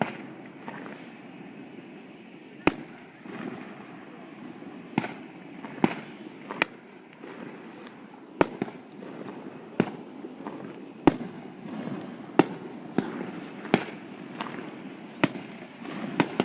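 Fireworks going off: about a dozen sharp bangs at irregular intervals of a second or two, over a steady low background noise.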